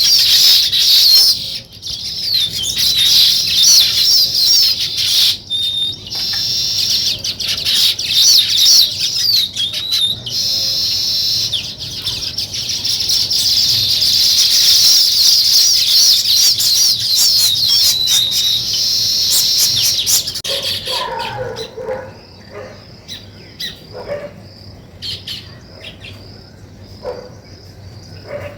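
A flock of small songbirds chirping and chattering continuously and densely. After about 20 seconds it thins out to scattered chirps, with a few lower-pitched calls.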